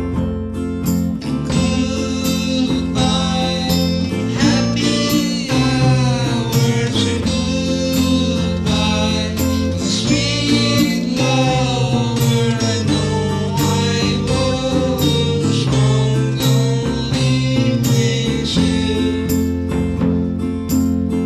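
A song played on guitars, bass guitar and drums, with a steady beat and a lead melody line that bends up and down in pitch.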